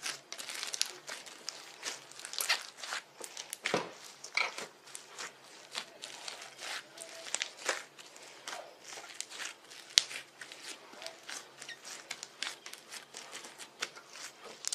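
Slime being worked and squished, making a dense run of irregular wet crackles and small pops, with one sharper click about ten seconds in.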